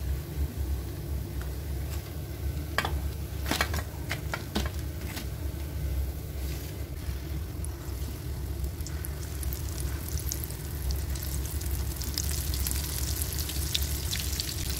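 Goli baje batter balls deep-frying in hot oil in a kadai, sizzling and crackling; the crackle grows denser and louder in the second half as a fresh batch fries. A few sharp clicks sound about three to four and a half seconds in, over a steady low hum.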